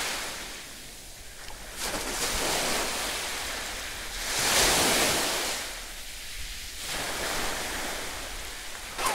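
Sea surf washing on the shore with some wind on the microphone, rising and falling in swells every couple of seconds; the biggest swell comes about four to five seconds in.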